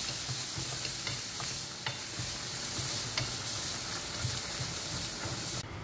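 Chopped vegetables sizzling in a stainless steel frying pan over a gas flame while a wooden spatula stirs them, with a few light scrapes against the pan. The sizzling cuts off suddenly near the end.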